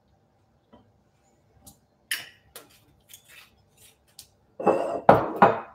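Kitchenware clinking and knocking as bottles and containers are handled on a kitchen bench: light scattered clicks, then three louder knocks close together near the end.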